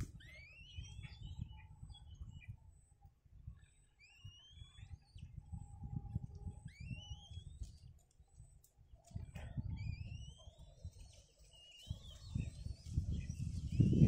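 Black-winged kites calling at the nest: thin whistled calls that each sweep upward over about a second, repeated in several bouts. A low rumble runs underneath and swells near the end.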